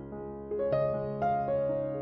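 Slow background piano music, a few notes struck one after another over held low notes.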